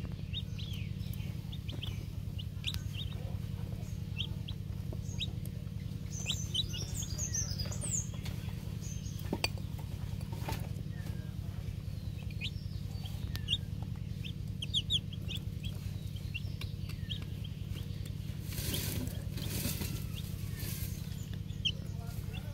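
Chickens and chicks peeping with many short, high chirps scattered throughout, over a steady low hum. A brief rustling hiss comes about three-quarters of the way through.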